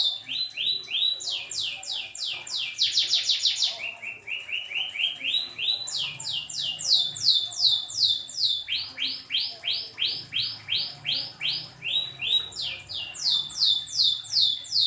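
Domestic canary singing a long unbroken song of rolls: fast trains of repeated down-slurred notes, each run switching to a new note and pitch every second or two, one burst about three seconds in noticeably quicker.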